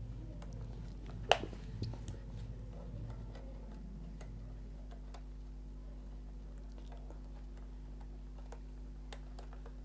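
Wire cutters snipping one conductor of a LAN cable: a single sharp snip about a second in, followed by a few fainter clicks and ticks of handling, over a steady low hum.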